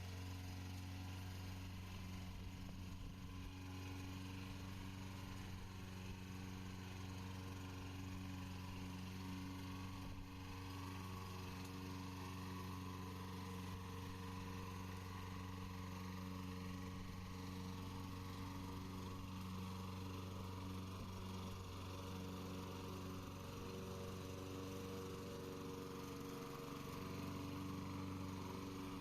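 Radio-controlled lawn mower's engine running steadily under mowing, a constant hum with no change in pitch.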